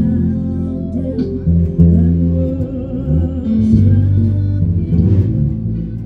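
Electric bass guitar playing a slow line of long, held low notes that change pitch every second or so, over other music.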